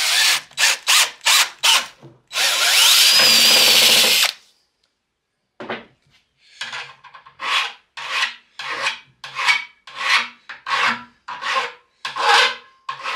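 DeWalt cordless drill boring holes through a thin metal strap: a few short bursts, then a steady run of about two seconds. After a pause, the cut edges are filed by hand in rasping strokes about two a second to take the burrs off.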